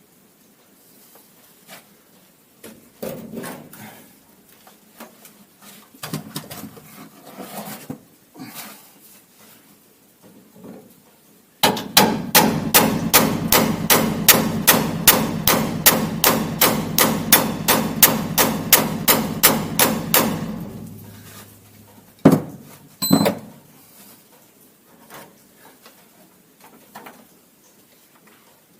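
A hammer striking metal in a fast, even run of blows, about three or four a second for roughly nine seconds, starting near the middle. Before the run come scattered knocks and tool handling, and after it two sharp knocks.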